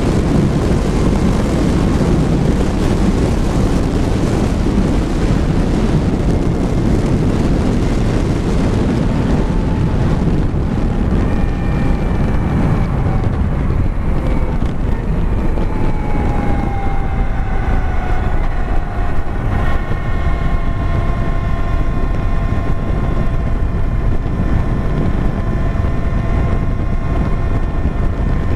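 2016 Victory Empulse TT electric motorcycle at road speed: wind rushing over the microphone with the electric drive's whine under it. The whine slides down in pitch about halfway through as the bike slows, then holds steady.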